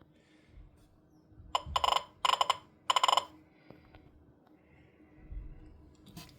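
Weather radio alert sounding as three short, buzzy electronic beeps in quick succession, part of a siren test. A soft low bump follows a couple of seconds later.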